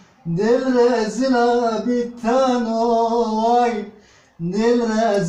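Unaccompanied male singing in long, wavering held phrases. Three phrases, separated by short pauses for breath.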